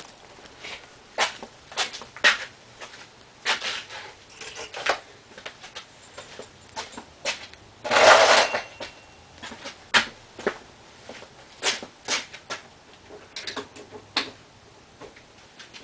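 Scattered clicks, knocks and clunks of someone moving about and handling things in a garage, with one short, louder rushing noise about halfway through. No engine is running.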